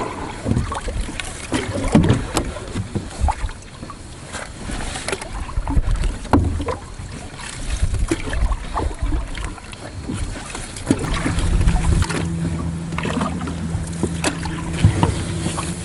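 Canoe being paddled: irregular paddle strokes splashing in the water, with occasional light knocks of the paddle on the hull. A steady low hum joins in for a few seconds in the second half.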